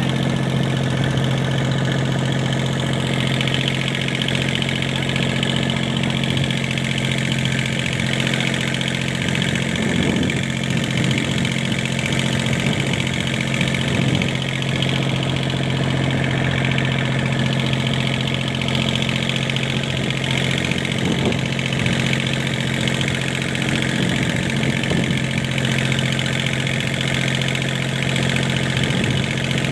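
Fishing boat's engine running steadily at a constant pitch, a low even drone with no change in speed.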